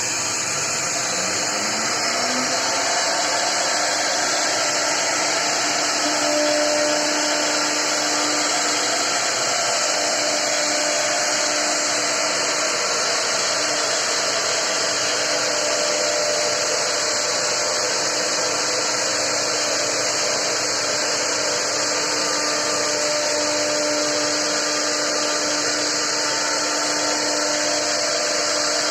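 CNC wood router's spindle running steadily while carving a wooden board, a continuous high hiss and whine. A tone rises in pitch during the first couple of seconds.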